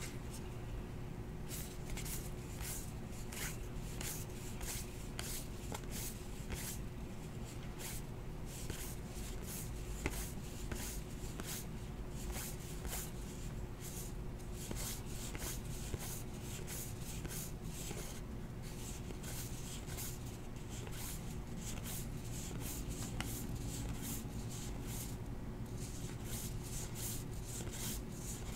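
2018 Topps Heritage baseball cards being flipped through by hand, one slid off another, in a quick, irregular run of soft flicks and rubs.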